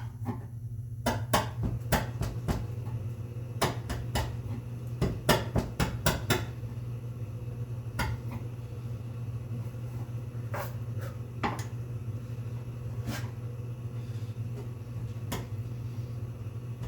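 Chisel paring excess cured epoxy off a wooden board: irregular sharp clicks and scrapes as bits of epoxy come away, thickest in the first six seconds and sparser after. A steady low hum runs underneath.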